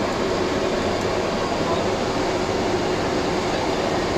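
Steady cockpit noise of a Beriev Be-200 amphibious aircraft in flight: the even drone of its turbofan engines and rushing air, with a steady hum running through it.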